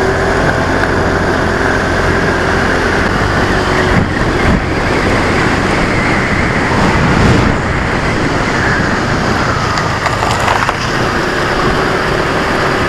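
Small motorcycle engine running on the move, its pitch rising and falling with the throttle, over a steady rush of noise.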